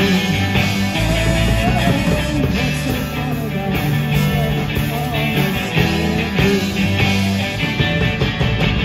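Rock band playing live: two electric guitars, an electric bass and a drum kit keeping a steady beat.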